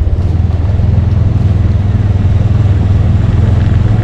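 A motor vehicle running steadily, a constant low engine drone with road noise over it.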